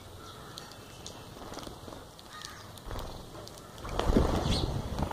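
House sparrows chirping as they feed, then about four seconds in the flock takes off at once with a loud flurry of wingbeats.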